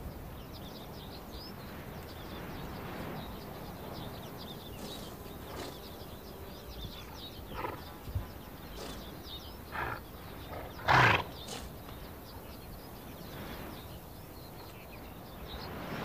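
Przewalski's horses in a herd: a short horse call, loud and about half a second long, about eleven seconds in, with a few fainter short sounds before it, over a steady low background hiss.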